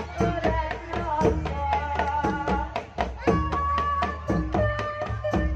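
Live Javanese jaranan music: kendang drums beating a quick, steady rhythm under a held, wavering melody line and a continuous low bass.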